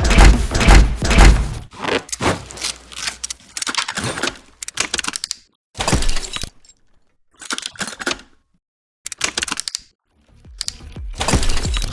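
Sound-designed sci-fi film effects: heavy, bassy impacts and breaking, shattering crashes, thinning out into scattered hits with short silent gaps in the middle, then building up again near the end.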